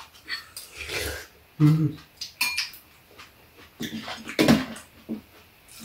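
Metal spoons and chopsticks clinking and scraping against bowls, mixed with the mouth noises of people eating and a brief low hum about a second and a half in.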